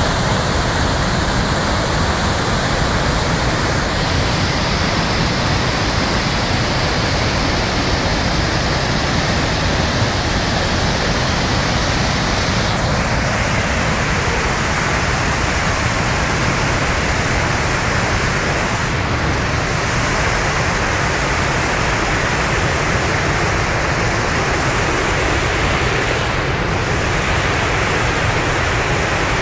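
Steady, loud rush of floodwater pouring over a dam's spillway and churning in the pool below, the river running high after heavy rain.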